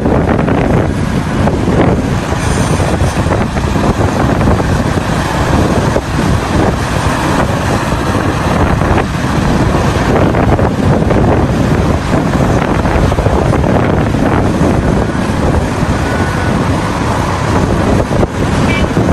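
Heavy mining machinery running steadily, its engine noise mixed with wind buffeting the microphone.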